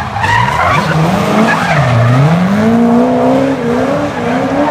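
Chevrolet Corvette C6's V8 and a BMW Z3 drifting in tandem: engines revving hard with tyres squealing as the cars slide. The engine note drops about two seconds in, then climbs and holds high.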